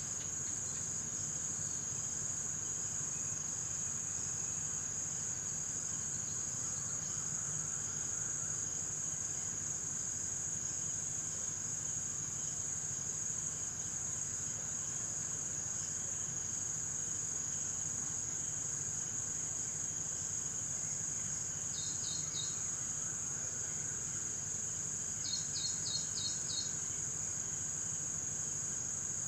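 Steady, unbroken high-pitched trilling of a cricket chorus. A few short runs of quick, lower chirps break in during the last third.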